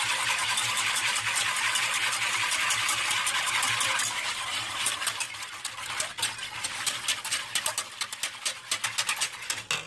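Wire whisk stirring salt into water in a stainless steel saucepan, dissolving it for a brine: a steady swishing scrape for about four seconds, then a quicker run of light clicks of the wires against the pan that grows fainter toward the end. A low steady hum runs underneath.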